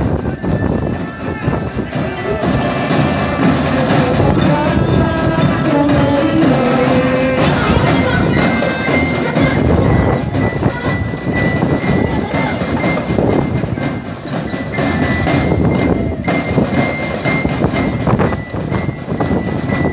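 Marching drum band playing: marching drums beat a fast, steady rhythm under a pitched melody.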